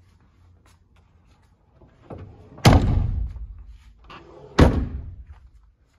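The two rear swing doors of a 1995 Toyota Land Cruiser KZJ73 being shut one after the other: two solid slams about two seconds apart, each with a short rattle as it swings closed.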